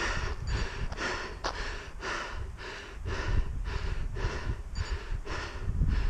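A runner panting hard after a run, short heavy breaths about twice a second.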